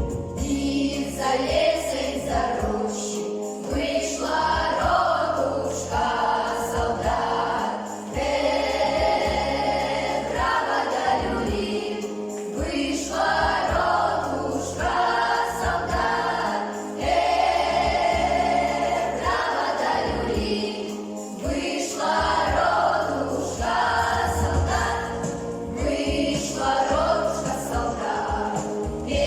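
Children's folk ensemble singing a Russian folk-style song together in chorus over an instrumental accompaniment, phrase after phrase.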